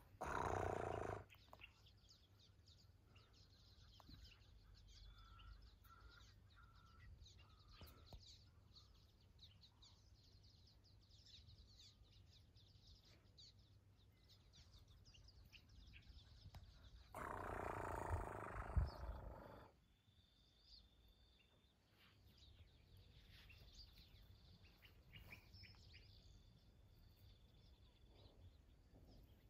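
Faint bird chirps over a quiet outdoor background, broken twice by short, loud, noisy bursts: one lasting about a second at the start, and a longer one of a couple of seconds a little past halfway.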